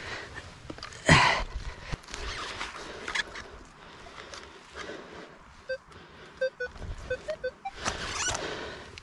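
A spade is driven into the soil with one loud strike about a second in, and it digs and scrapes again near the end. In between, a metal detector sounds a run of about eight short beeps whose pitch steps up at the last ones. It is signalling a buried metal target in the hole, which reads 40-45 on the display.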